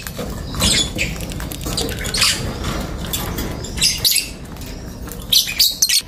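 Caged lovebirds giving short, shrill chirps and squawks, scattered singly and in a quick cluster near the end.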